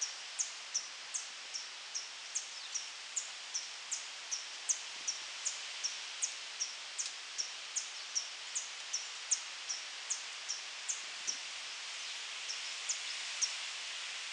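A hummingbird giving short, high chirps over and over, about two to three a second, with a brief pause about three-quarters of the way through. Behind it, wind rustles steadily through the treetops.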